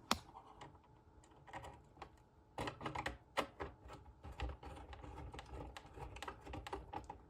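Faint, irregular small clicks and taps from wires being worked into the terminal strip of an irrigation controller.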